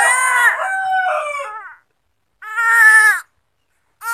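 Infant crying: a long wail that trails off, then a second, shorter cry about two and a half seconds in, and another starting near the end.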